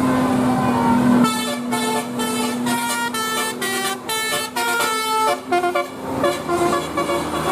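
Basuri telolet bus horn playing a fast multi-note tune, its pitched tones stepping up and down every fraction of a second. A steady low hum gives way to it about a second in, and the tune thins to a few spaced notes near the end.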